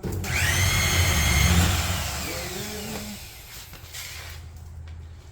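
A motor starting suddenly with a low rumble and a whine that rises, then holds steady, fading after about three seconds.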